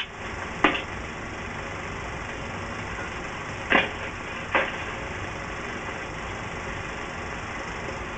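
Steady hiss of an old film soundtrack. Three short sounds break through it, one just under a second in and two close together about four seconds in, the first of that pair falling in pitch.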